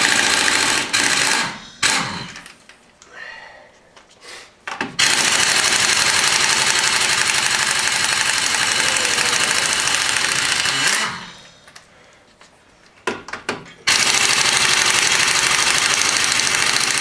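Air impact wrench running on a Jeep's wheel lug nuts in three bursts of several seconds each, with quieter pauses between as it goes from nut to nut.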